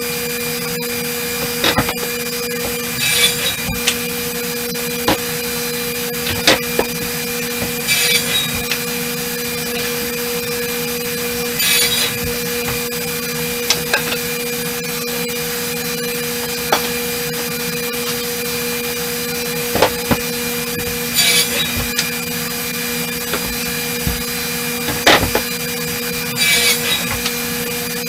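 A woodworking shop machine runs steadily with a low hum. Wooden boards knock and clatter now and then as they are handled, with a few short rasping bursts among them.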